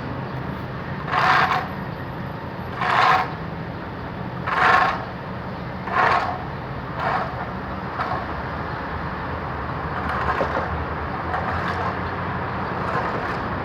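Truck engine running steadily, with five short noisy thuds about a second and a half apart in the first half, from sacks of cement being handled on the truck.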